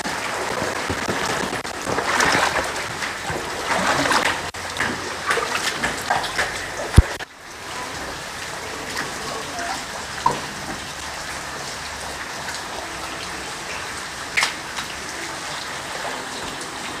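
Rain falling on standing floodwater, a steady patter with scattered drips. A sharp click comes about seven seconds in, after which the patter drops suddenly to a quieter, steadier level.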